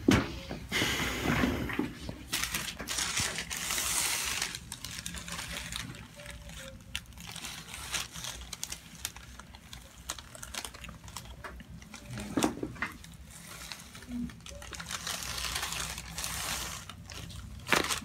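Rustling and crinkling of the paper headrest cover and hands shifting over skin and hair as a chiropractor positions a patient's head for a neck adjustment, with a few soft clicks.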